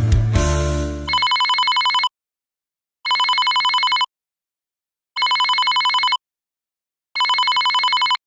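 A mobile phone ringing with an old-style trilling telephone ringtone: four rings of about a second each, a second apart. Guitar music stops about a second in, just before the first ring.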